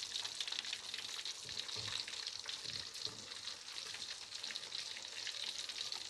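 Carp frying in hot oil, a steady dense sizzle and crackle; the fish is not yet done.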